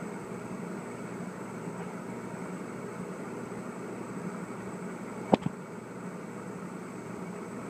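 Steady mechanical hum with a hiss over it, and one sharp click about five seconds in.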